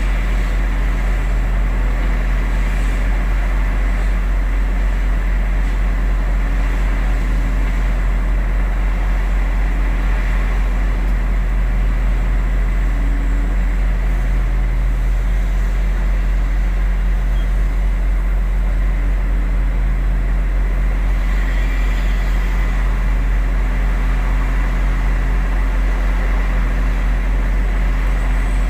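Heavy diesel engine of earthmoving equipment running steadily with a deep drone and no change in speed.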